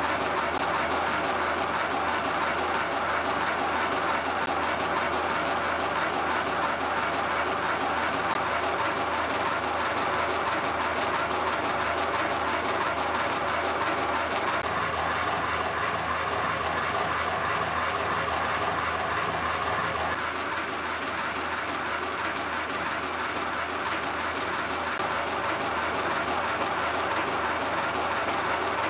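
Universal milling machine with a homebuilt hobbing attachment running while hobbing a spur gear: a steady mechanical whirr with a constant high whine, a little quieter from about twenty seconds in.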